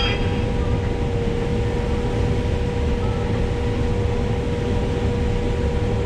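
Combine harvester running steadily, heard from inside its cab as it harvests corn and unloads grain through its auger on the go: an even machine drone with a constant hum.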